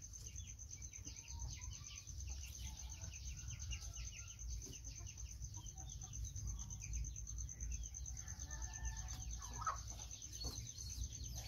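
Chickens clucking faintly in short scattered calls, over a steady thin high-pitched tone and a low rumble.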